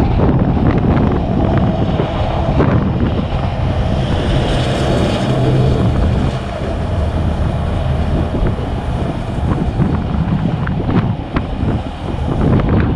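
Wind buffeting the microphone over steady vehicle noise from highway traffic, with a swell in the hiss about four to six seconds in as a vehicle goes by.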